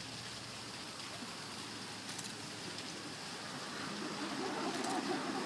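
Outdoor ambience: a steady background hiss around a quiet seated crowd, with faint murmuring among the guests rising in the last second or so.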